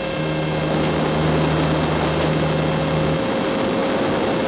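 Align T-Rex 600 RC helicopter in flight: steady rotor and motor noise with a constant high-pitched whine. A low hum within it stops about three seconds in.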